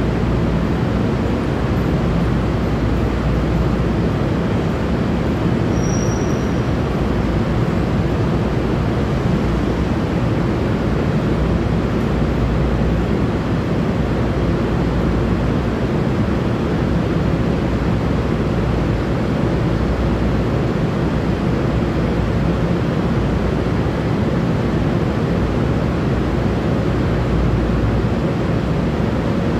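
Steady low rumble and hiss of an underground railway platform, with a brief high-pitched squeal about six seconds in.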